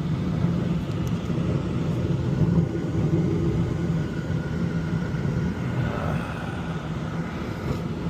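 Gas burners of an HVAC unit's heat section firing with the draft inducer running: a steady low rumble that eases a little about six seconds in.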